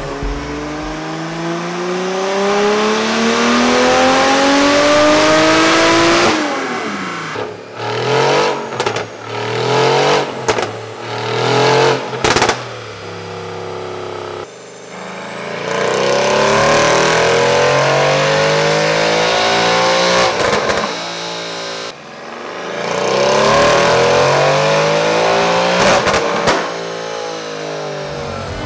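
Car engine revving hard: a long rise in pitch under acceleration, then a stretch of short, choppy revs with sharp cracks, then two more long pulls rising in pitch.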